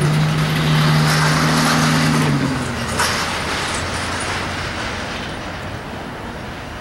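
Road vehicles driving past close by. A truck's engine drone holds a steady pitch, then drops as it passes about two and a half seconds in. Tyre noise follows and slowly fades.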